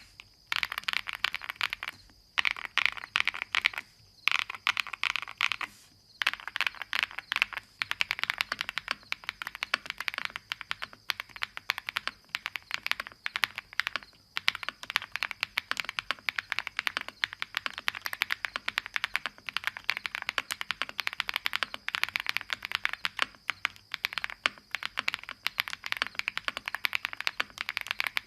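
Typing on a QwertyKeys QK75N mechanical keyboard with Salmon switches, an FR4 plate and Pelican keycaps: fast, continuous keystrokes, broken by a few brief pauses in the first six seconds.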